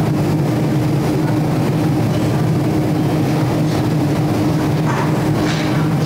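A steady low hum with an even hiss over it, holding two unchanging low tones.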